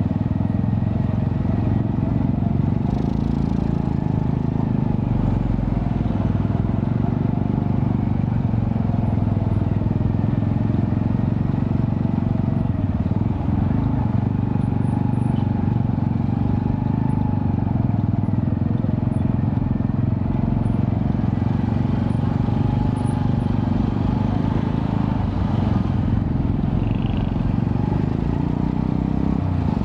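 Honda Astrea Prima streetcub's 110cc single-cylinder engine running steadily through a custom underbelly exhaust with resonator.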